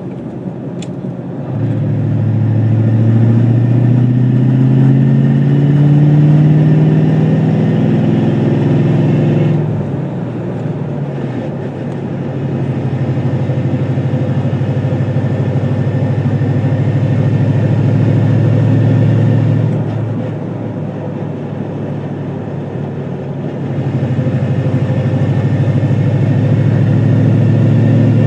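2002 Ford Mustang GT's 4.6-litre V8 running, its revs climbing slowly for several seconds, then dropping back, holding steady, dipping briefly and rising again near the end.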